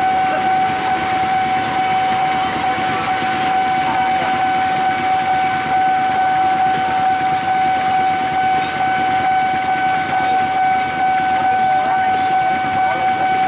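Railway level-crossing warning alarm sounding one steady, unbroken tone, over the rumble of a passenger train rolling slowly past and the idling of waiting motorbikes.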